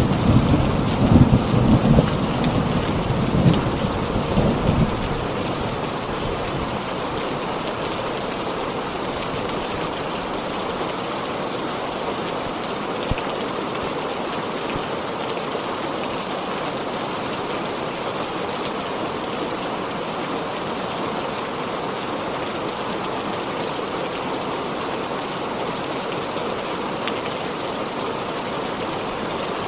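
Heavy rain falling steadily, with a roll of thunder rumbling over the first few seconds and dying away about five seconds in.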